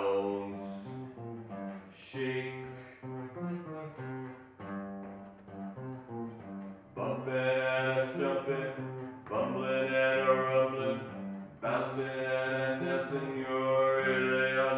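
Live instrumental music: a bowed string instrument playing sustained notes that change pitch in steps, growing fuller and louder about halfway through.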